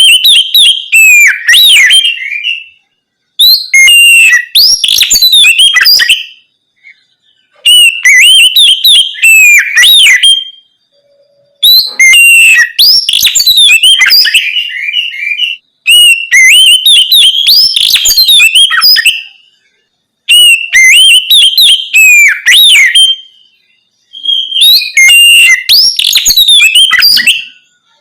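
Oriental magpie-robin (kacer) singing loudly in open, full-voiced 'ngeplong' style: about seven phrases of quick, varied whistled notes, each a few seconds long, separated by short pauses.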